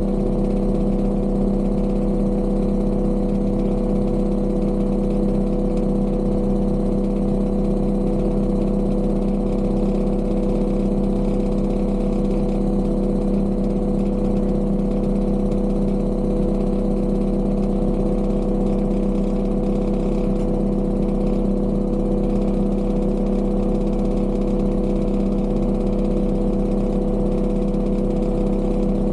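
Engine of heavy construction machinery running steadily at one constant speed, a loud, even drone with no revving or change.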